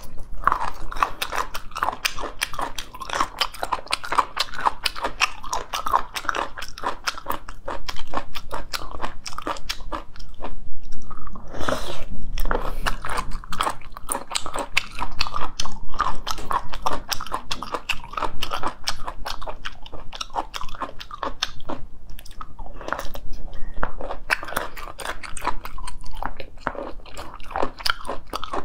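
Close-miked biting and chewing of raw geoduck sashimi: a dense run of wet crunches and clicks, loudest in the middle stretch.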